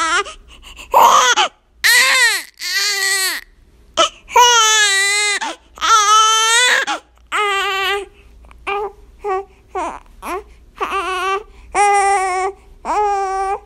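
Infant crying in about a dozen loud wails, each a fraction of a second to a second long, with short breaths between them. Some of the longer wails waver in pitch.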